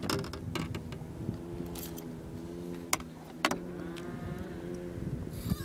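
A boat motor hums steadily, with sharp clicks and knocks from a landing net and fishing gear being handled on the boat's deck while a caught salmon is worked in the net. A bird calls at the very end.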